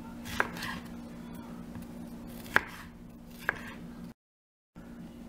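Chef's knife slicing a yellow bell pepper on a bamboo cutting board: three sharp knocks of the blade on the board, two close together near the middle, over a steady low hum.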